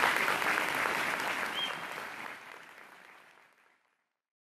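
Audience applauding, the clapping fading out about three and a half seconds in.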